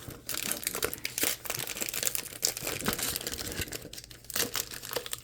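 Foil wrapper of a trading-card pack crinkling and tearing as it is ripped open and handled, with a brief pause about four seconds in.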